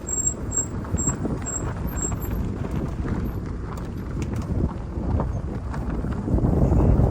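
Vehicle moving slowly over a rough dirt track: a steady low rumble with irregular knocks and rattles, growing louder near the end.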